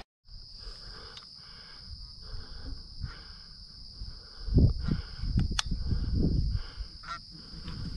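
Canada geese honking repeatedly at a distance. From about halfway there is a louder low rumble and thumping on the microphone.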